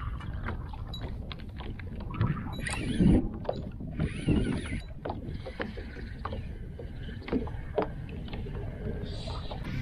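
A plastic sit-on-top kayak drifting on light chop: water laps at the hull, and the hull and deck gear make many small knocks and clicks. There are two brief splashy hisses about three and four and a half seconds in.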